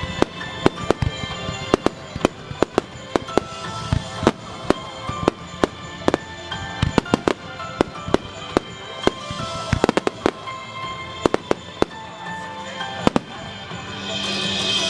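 Aerial fireworks shells bursting close by: a rapid, irregular series of sharp bangs, often several a second, over music accompanying the show. A louder hissing wash rises near the end.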